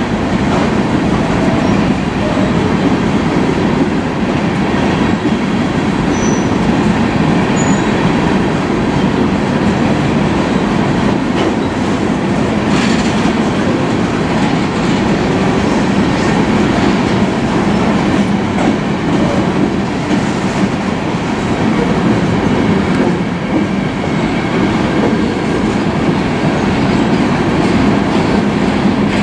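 Empty open-top coal hopper cars of a BNSF freight train rolling past, their wheels on the rails making a steady, continuous rumble.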